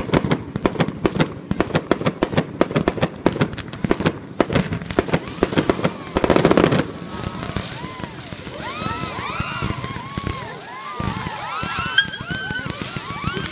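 Firecrackers going off in a rapid run of sharp bangs, then a dense, loud crackling burst about six seconds in. After that come many overlapping whistling fireworks, each whistle rising then falling in pitch.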